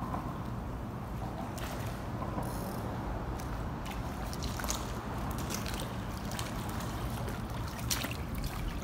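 Water splashing and swirling as a hooked redfish thrashes at the surface, over a steady low rumble, with a few short sharp splashes or knocks scattered through it.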